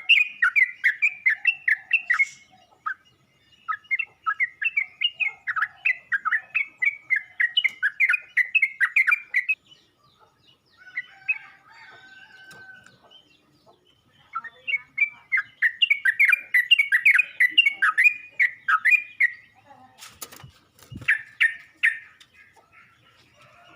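Yellow-vented bulbul (trucuk) calling in long runs of quick, repeated chirping notes, three main runs separated by pauses. A single sharp knock about 20 seconds in.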